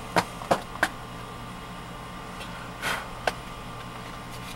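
Three sharp clicks in quick succession about a second in, a short scuff near the middle and one more click just after, over a steady hum in an SUV's cabin: small handling noises around a plastic centre console.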